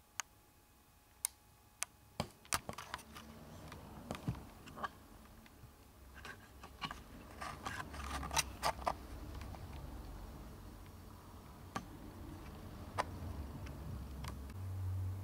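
Camcorder handling noise: scattered sharp clicks and light knocks, thickest about halfway through, over a low hum that grows louder near the end, as the camera is moved and zoomed in.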